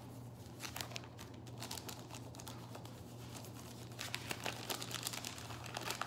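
Brown paper bag crinkling and rustling as a crayon is rubbed over it and the bag is handled, with a busier run of crackles in the last couple of seconds.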